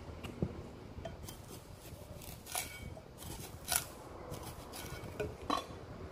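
Kitchen work on fresh bamboo shoots: a knife and the cut pieces knock and clink against the board and dishes in about half a dozen short, irregular clacks.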